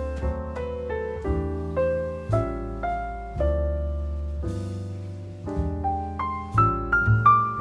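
Piano music: low bass notes held under a melody of struck notes, the melody climbing in a quick run of higher notes near the end.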